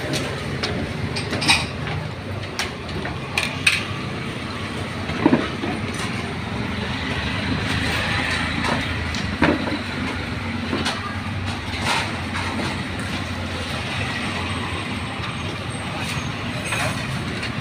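Street traffic running steadily, swelling as an auto-rickshaw passes close about eight seconds in. Scattered sharp clicks and knocks sound over it.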